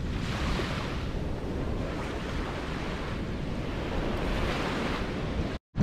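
Small surf washing onto a sandy beach, with wind rumbling on the microphone. The sound breaks off for a moment near the end.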